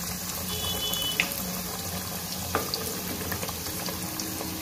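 Banana-flower vadas (chana dal fritters) deep-frying in hot oil: a steady bubbling sizzle as they brown, with two light clicks of the steel skimmer about a second and two and a half seconds in.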